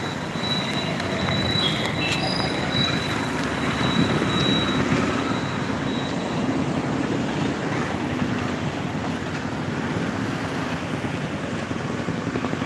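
Steady road traffic noise from vehicles passing on a city street, with a faint thin high tone that comes and goes in the first half.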